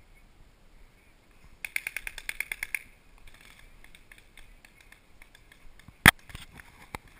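Paintball markers firing: a rapid string of about a dozen shots, about ten a second, starting a couple of seconds in, then one loud single shot near the end followed by a few fainter pops.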